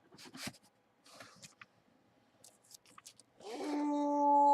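Short crinkling and tearing sounds of card packaging being opened, then about three and a half seconds in a man's long, drawn-out 'ooooh' of surprise at the pulled card.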